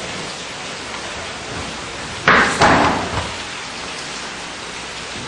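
Two loud thuds about a third of a second apart a little past the middle, each with a short ring after, over steady recording hiss: a body landing hard on the dojo floor as a throw is taken.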